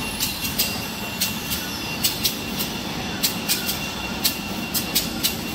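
Tissue-paper rewinding machine running: a steady mechanical hum with sharp clicks about three times a second, irregularly spaced, and a faint constant high tone.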